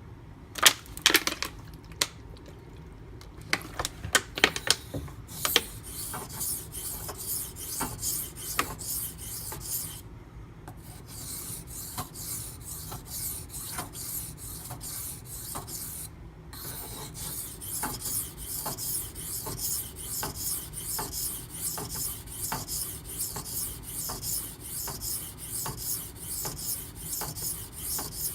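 Knife blade of 8Cr13MoV steel being stroked back and forth across a wet Naniwa Professional 400-grit water stone, a rhythmic gritty rasp at about two strokes a second while a burr is raised. A few sharp knocks and taps come in the first five seconds.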